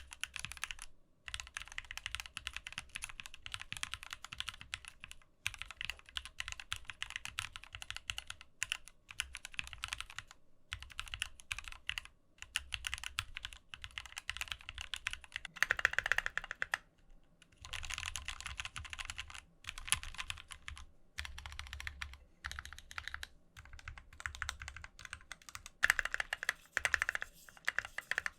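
Typing on a Keychron Q4, an aluminium-cased 60% mechanical keyboard: runs of quick keystroke clacks broken by short pauses, with a few louder strokes about halfway through and near the end.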